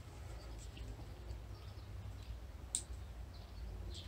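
Faint handling clicks as a bowstring is taken off the posts of a string-building jig, with one sharper click about two-thirds of the way through, over a low steady hum.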